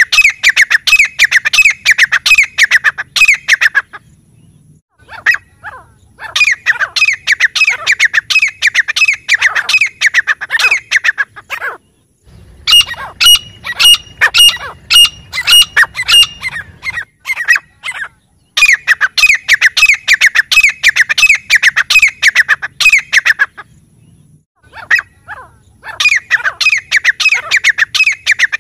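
Grey francolins calling: loud bouts of fast, harsh repeated notes, five bouts each a few seconds long with short pauses between. In the middle bout the notes are more widely spaced and ring more clearly.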